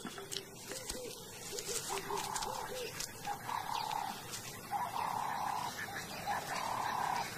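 Wild animal calls: short, arching calls at first, then a run of longer, higher-pitched calls about once a second.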